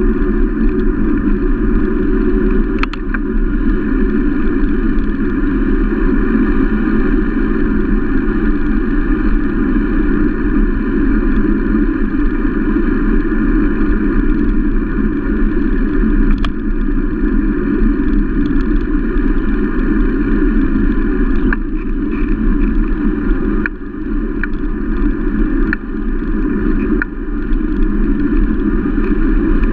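Steady rush of wind and road rumble on a bicycle-mounted camera's microphone while riding along a paved road, with a few faint clicks in the second half.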